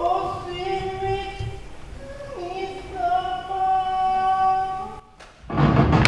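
Tokiwazu chanting: long, drawn-out vocal notes that sag and drop in pitch, with no shamisen plucks audible. About five and a half seconds in, a loud, noisy sound cuts in.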